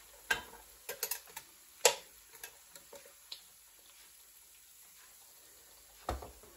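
Light metallic clicks and clinks of a wire pan handle and a stainless steel trivet as a round egg pan is lifted out of an air fryer basket, the loudest about two seconds in. A dull thump near the end as the pan is set down.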